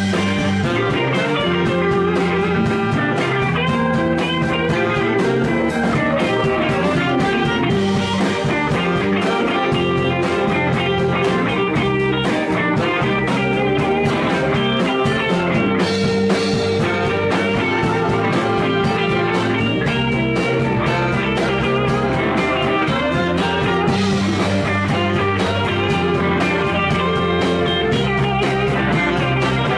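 Live blues-rock band playing, with electric guitars to the fore over a drum kit keeping a steady beat.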